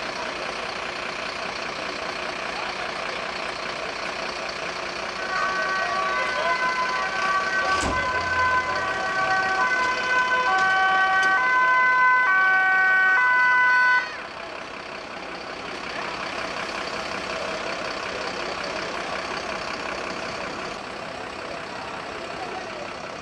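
Emergency-vehicle two-tone sirens, more than one overlapping, switching back and forth between pitches. They start about five seconds in and cut off suddenly about fourteen seconds in, over steady vehicle engine noise. There is a single sharp knock about eight seconds in.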